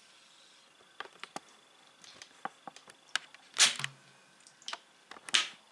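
Camera handling noise: a string of small clicks and knocks, with two louder brief rustles about three and a half and five seconds in.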